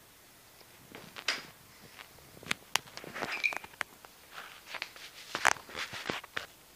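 Parts being handled and fitted by hand: irregular clicks, taps and short rustles, with a brief squeak about three and a half seconds in.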